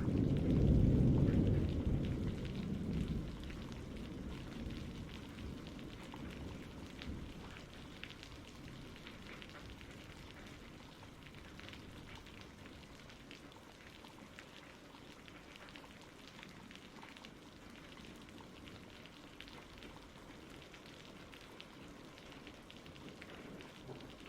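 Steady rain falling, an even patter, with a low rumble of thunder in the first few seconds that dies away.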